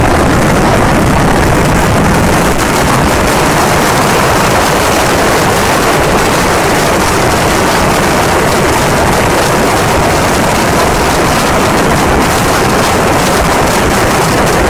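Continuous barrage of Kerala vedikettu fireworks: rapid firecracker blasts and ground shells going off so closely together that they merge into one loud, unbroken din, with no pause.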